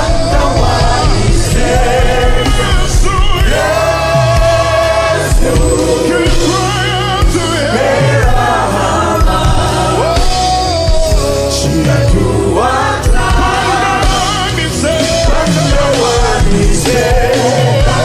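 Live gospel worship music: a voice sings long, wavering notes over a band with a steady bass and drums.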